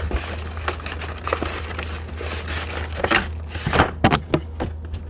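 Cardboard packaging and wrapped trading-card packs rustling and crinkling as a trading-card box's inner contents are slid out by hand, with irregular scrapes and a few sharper taps, over a low steady hum.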